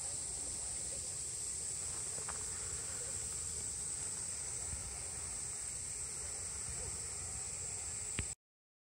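Steady high-pitched drone of insects in summer, over a low outdoor rumble; it cuts off suddenly near the end.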